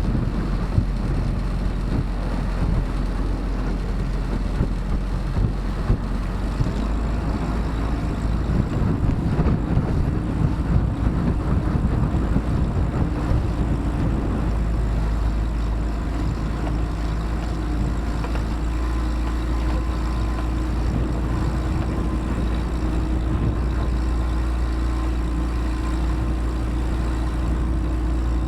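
Small motorboat's engine running steadily with an even drone. A rougher low rumble overlies it in the first half and fades after about fourteen seconds.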